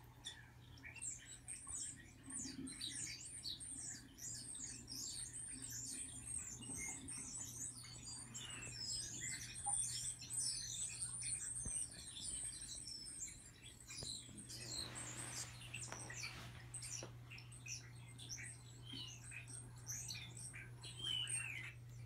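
Small songbirds chirping and twittering from a television's speakers: many quick, high notes, often falling in pitch and overlapping, over a steady low hum. A soft rustle comes about two-thirds of the way through.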